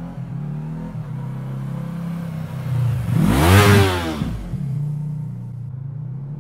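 Yamaha R3's parallel-twin engine through an Akrapovic carbon slip-on exhaust, riding past close by. The engine note swells, rises in pitch and is loudest about three and a half seconds in as the bike goes past, then drops in pitch and falls back to a steadier, quieter note.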